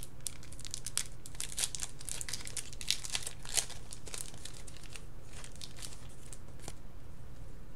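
Packaging crinkling and rustling as trading cards are handled, busiest for the first five seconds or so and then dying down, over a low steady hum.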